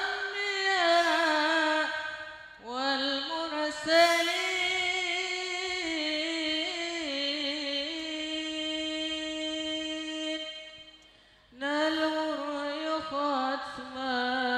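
Teenage boys singing a winding, ornamented vocal melody in unison into microphones, in three long phrases with short breath pauses about two seconds in and again near the end, one note held for a couple of seconds in the middle.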